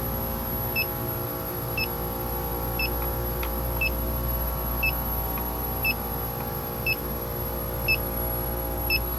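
Electronic refrigerant leak detector (D-TEK) ticking out short high beeps at an even rate of about one a second, its slow idle rate with no leak sensed, over the steady hum of running refrigeration machinery.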